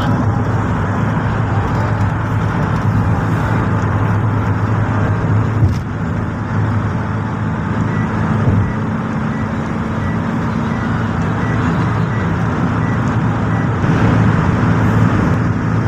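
Steady drone of engine and road noise heard from inside a vehicle travelling at highway speed. A faint high beep repeats about twice a second for several seconds past the middle.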